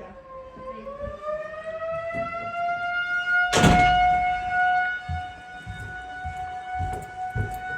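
Outdoor tornado warning siren sounding. Its pitch dips, then rises about a second in to a steady high tone that is held. There is one brief, loud burst of noise about three and a half seconds in.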